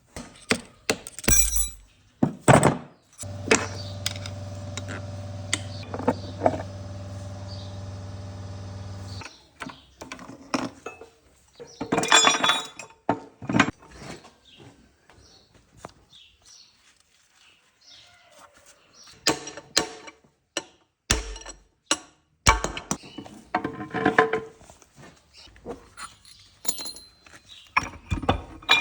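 Steel gears, shafts and tools of a five-speed manual transmission being handled and fitted during reassembly: irregular metallic clinks and knocks with quiet gaps. A steady hum runs for about six seconds near the start.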